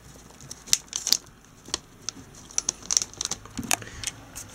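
Scattered sharp clicks and rustling as a DVI monitor cable plug is handled and pushed into its socket, with handling noise as the camera is moved.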